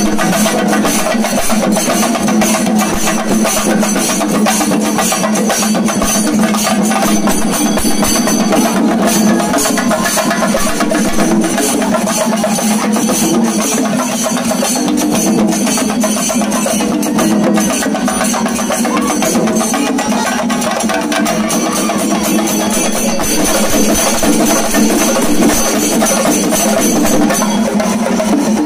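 Shinkari melam ensemble playing loudly: many chenda drums beaten fast with sticks together with clashing ilathalam hand cymbals, a dense, driving rhythm that keeps up without a break.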